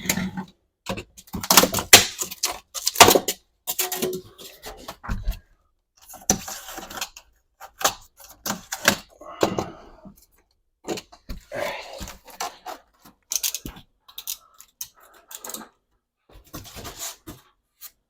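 Hand-cutting a damaged edge off a board: a series of irregular scraping and cutting strokes broken by short pauses.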